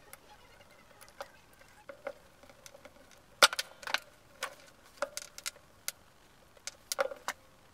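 Irregular small clicks and taps of a screwdriver and metal parts against a jig saw's metal motor housing as it is reassembled by hand, a few of the taps ringing briefly. The sharpest click comes about halfway through, with a quick cluster near the end.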